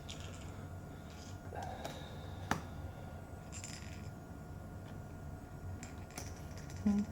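Faint clicks and rustles of small laptop parts and screws being handled, with one sharp click about two and a half seconds in, over a steady low hum.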